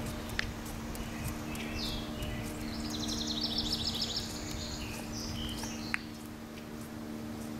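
A songbird sings a rapid trill of quickly repeated high notes through the middle, over steady outdoor background noise with a low hum. A couple of short sharp clicks stand out.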